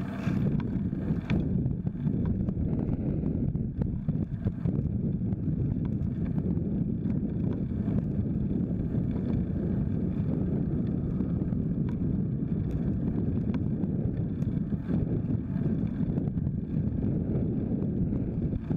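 Steady wind rumble on the microphone of a bike-mounted camera while riding a folding bike along a paved road, with scattered small clicks.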